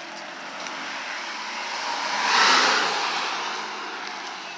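A car passing by on the road. Its tyre and engine noise swells to a peak a little past halfway, then fades as it goes on up the road.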